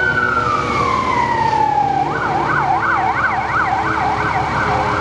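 Fire department vehicle's electronic siren pulling away on a call: a long wail falling in pitch, then switching about two seconds in to a fast up-and-down yelp.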